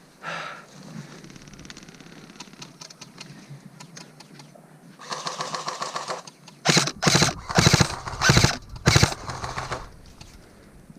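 Airsoft electric guns firing full-auto bursts, each a rapid mechanical rattle. A longer burst comes about five seconds in, then about five short, loud bursts follow in quick succession.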